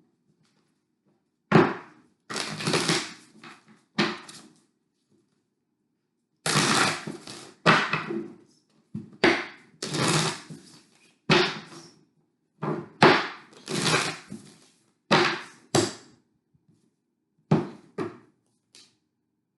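Deck of oracle cards being shuffled by hand, in a string of short scratchy bursts with pauses between them.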